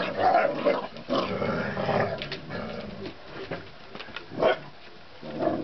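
Basset hounds growling as they scuffle, dense for the first couple of seconds, then two short growling outbursts near the end.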